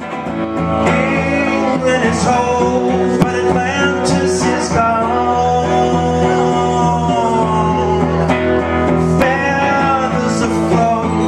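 Live band playing a song: electric guitar with steady low held notes beneath it and a wordless vocal line gliding above.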